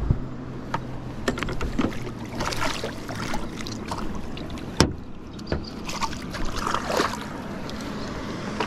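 Water splashing and sloshing as a Murray cod held on a lip grip is lowered over the side of a boat and released, kicking in the water. A single sharp knock about five seconds in.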